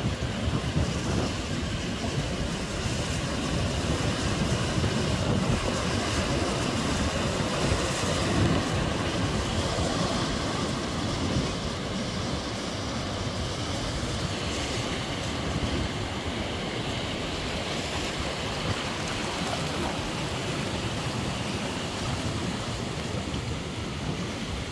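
Ocean surf washing around rocky tide pools, mixed with wind on the microphone: a steady rush with a gusty low rumble.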